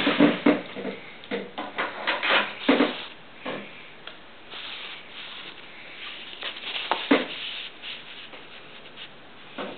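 Irregular knocks and clicks with rubbing and rustling between them, several sharp ones close together in the first three seconds, one about seven seconds in and one near the end.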